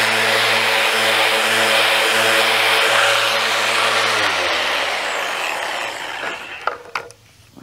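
Electric random orbital sander running against a pine rafter, a steady motor buzz with the scrub of the pad on the wood. About four seconds in it is switched off and spins down, its pitch falling away, and a couple of light knocks follow near the end.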